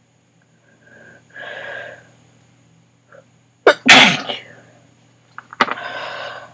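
A woman sneezing during a sneezing attack: a breathy build-up, then one loud sneeze about four seconds in, followed by another breath.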